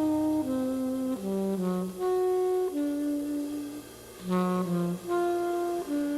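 Background music: a slow melody of held notes that steps from pitch to pitch, dipping briefly about four seconds in.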